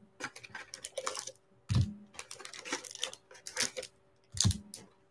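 Foil packs of 2016 Panini Absolute football cards being taken from their cardboard box and set down on a wooden table: a run of light clicks and crinkles, with two duller thumps about two seconds in and near the end.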